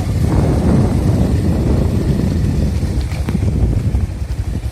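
A moving vehicle's engine running, heard under heavy wind buffeting on the microphone, with a couple of light knocks about three seconds in.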